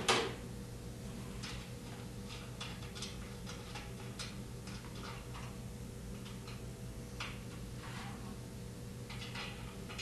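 Scattered light metallic clicks and ticks from hand tools and screws being worked on a washer's rear bearing housing as its mounting screws are removed, irregular and spaced a fraction of a second to a second apart, over a steady low hum.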